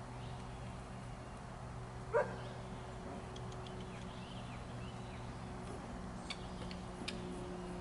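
A dog gives a single short bark about two seconds in, over a steady low hum, with a few faint clicks near the end.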